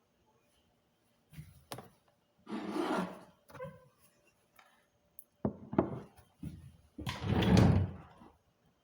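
Irregular knocks, clicks and scraping rustles of household objects being handled and moved about, with a longer, louder scrape near the end.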